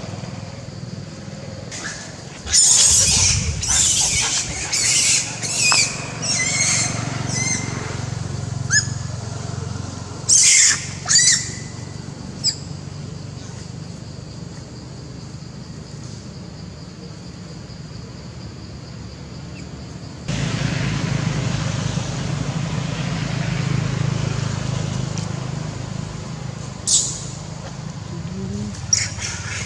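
Long-tailed macaques screaming: a run of about half a dozen quick shrill cries a few seconds in, two more around the middle, and a short falling squeal near the end, over a steady low rumble.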